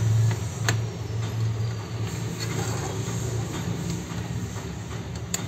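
Steady low hum with background noise, broken by two sharp clicks, one under a second in and one near the end.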